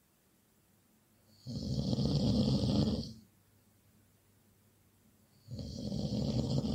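Loud snoring: two long snores, each lasting about a second and a half, roughly four seconds apart with quiet breathing pauses between them.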